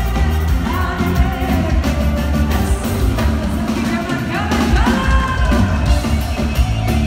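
Live band music with a woman singing over heavy bass and drums, her held notes sliding about a second in and again past the middle.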